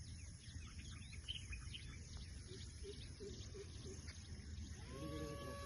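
Small birds chirping, many short high calls over a low outdoor rumble. Near the end a steady whining tone starts and steps up in pitch.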